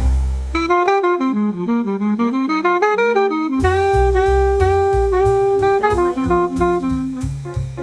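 Background jazz music: a solo melody over a walking bass line, with drums and a fuller bass coming in about halfway through.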